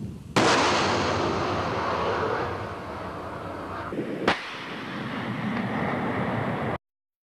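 BrahMos supersonic cruise missile launching from a ground launcher: a sudden blast about a third of a second in, then the rushing roar of its solid-fuel booster fading over a few seconds. A single sharp bang about four seconds in, followed by rumble that cuts off suddenly near the end.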